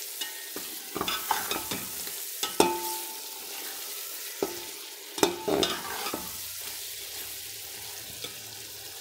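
Slotted metal spoon scraping and knocking against a metal pot as meatballs in a tomato and spice masala are stirred, over the steady sizzle of the oil. The scrapes come irregularly for about the first six seconds, then only the sizzle goes on.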